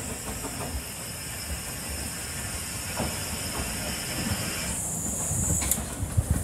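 Narrow-gauge steam tank engine 'Tom Rolt' drifting into a station with a steady hiss of steam over the low rumble and clicking of its wheels on the rails; the hiss thins out about five seconds in.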